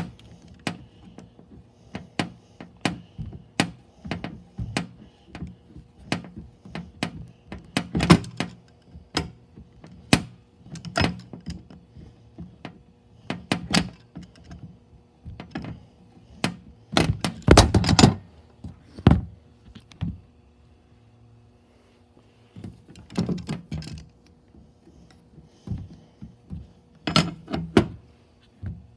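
Pliers clicking and knocking on the metal stabilizer bar fitting of a Taylor 161 faceplate as it is unscrewed, turn by turn: irregular clicks and thunks, loudest in a quick cluster about halfway through. A faint steady hum runs underneath.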